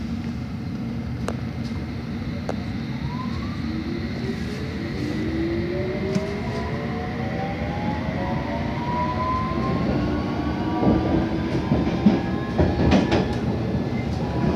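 London Underground S7 Stock train pulling away, heard from inside the carriage: the traction motors give a whine that rises steadily in pitch as it gathers speed, over a steady rumble of wheels on rail. A few clicks and knocks come in over the last few seconds.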